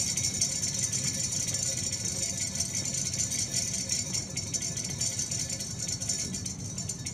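Dense, fast rattling of tiny charged beads bouncing between the metal plates and walls of a Volta's hailstorm cylinder. The patter thins slightly toward the end.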